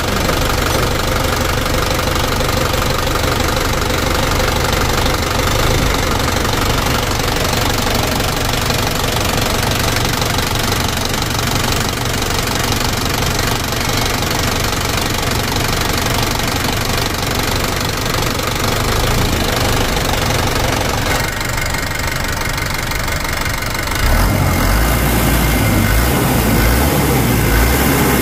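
Toyota Dyna 130 HT diesel engine running at idle on a test run after its inline injection pump has been rebuilt and set. About 24 seconds in, it gets louder and its low rumble grows heavier.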